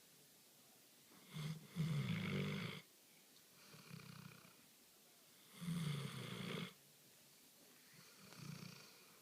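A sleeping dog snoring: a snore about every two seconds, loud ones alternating with softer ones.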